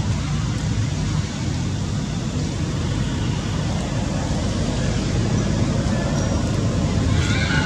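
Steady low rumble of outdoor background noise, with a brief higher-pitched sound near the end.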